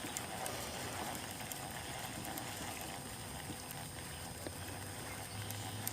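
Steady wash of water around a boat trolling slowly, with a faint steady hum underneath.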